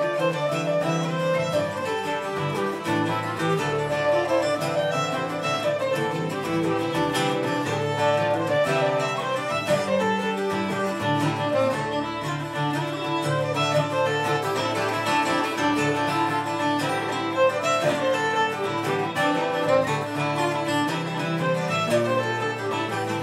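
Irish traditional jigs played live by uilleann pipes, fiddle, bouzouki and acoustic guitar. The pipes and fiddle carry the melody over strummed bouzouki and guitar chords.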